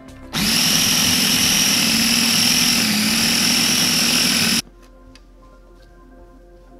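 A small KitchenAid food processor's motor runs, shredding cabbage finely. It starts abruptly, runs steadily for about four seconds, and cuts off suddenly.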